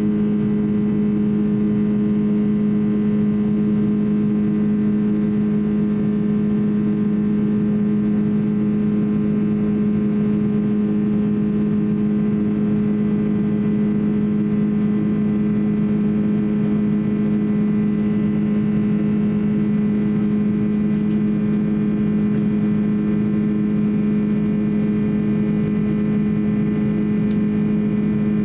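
Cabin noise of a Boeing 767-300 in flight, heard from a window seat beside the engine: the turbofan engines' steady drone with several steady hum tones over a rushing noise.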